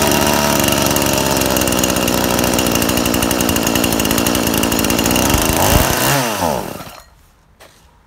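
Two-stroke chainsaw engine, a 49.3 cc motor from a Klever GS5200N in a Stihl MS 180 body, runs loudly and steadily for about five and a half seconds. Its speed then drops away and it stalls about seven seconds in. This fits a cold engine that won't keep running until it is warmed up.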